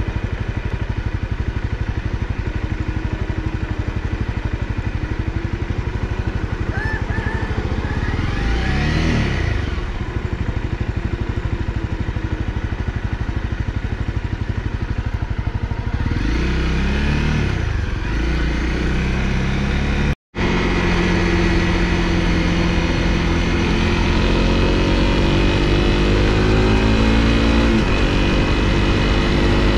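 Honda CRF250L single-cylinder four-stroke motorcycle engine running under way, heard from the rider's position. Its pitch rises and falls twice, the sound drops out for a moment about twenty seconds in, and then the engine climbs steadily in pitch as it accelerates.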